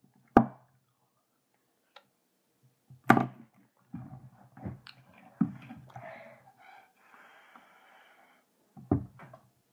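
Mouth sounds of a hard Bottle Caps candy being sucked and smacked between the lips. Three sharp knocks, the first less than half a second in, the second about three seconds in and the last near the end, come from hands handling things close to the microphone.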